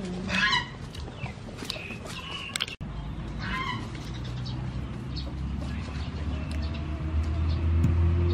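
Two short animal calls, one right at the start and another about three and a half seconds in. Under them a low hum builds through the second half and is loudest near the end.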